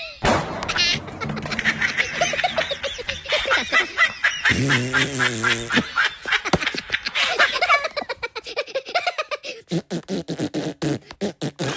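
Laughter in rapid repeated bursts, and near the end a baby giggling.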